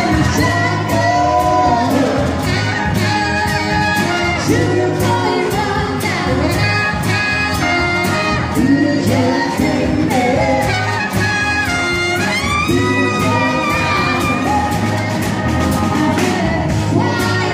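Live band playing an upbeat song: a drum kit keeps a steady beat under saxophone and a singer.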